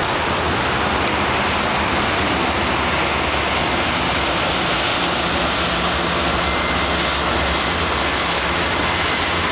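Steady rushing noise, loud and even, with a faint low hum underneath.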